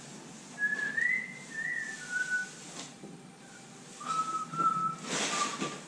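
A person whistling a short, wandering tune in two phrases. A brief rattle of handling noise comes near the end.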